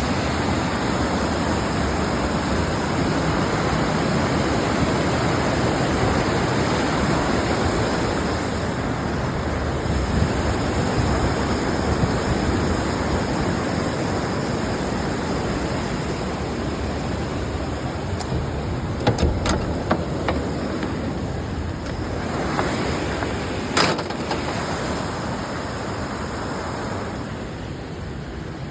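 Steady rush of the River Doe pouring through Baxenghyll Gorge's rock channel, slowly fading toward the end. A few brief knocks are heard about two-thirds of the way through.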